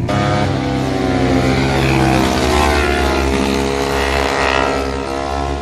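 Motorcycle engines revving as bikes ride through a hairpin curve, the pitch rising and then falling in the middle as they pass.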